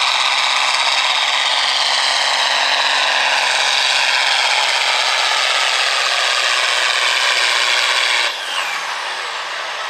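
Semi truck's diesel engine running flat out under load as it drags a pulling sled, its pitch sagging slowly as the truck bogs down. About eight seconds in the throttle is cut suddenly and a high whine winds down.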